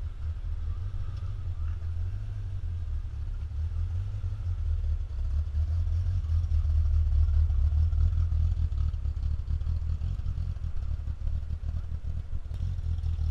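Car engine idling with a low, steady rumble that grows a little louder around the middle.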